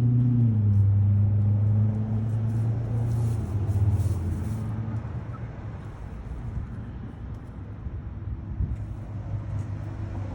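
A motor vehicle's engine running with a steady low hum, which fades away about halfway through.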